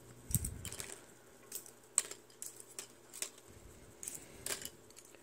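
Small plastic model-kit parts, the barrels and discs of a minigun model, clicking and tapping lightly as they are handled and set down on a wooden desk. The clicks are scattered and irregular, with a soft bump about half a second in.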